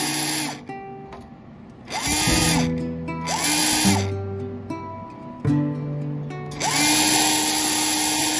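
A small handheld power tool's motor whirring in bursts, rising in pitch as it spins up and falling as it winds down. It stops about half a second in, runs briefly twice around two and three seconds in, then runs steadily again for the last couple of seconds. Background music with sustained notes is heard in the pauses.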